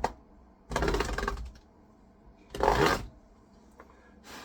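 Scraping on a computer keyboard while working out a trapped hair: a couple of clicks, then two harsh rasping scrapes about a second and a half apart, the second one shorter.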